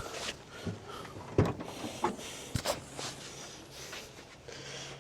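Handling noise as tools and gear are packed up: a few separate knocks and clicks. A faint low hum starts about halfway through.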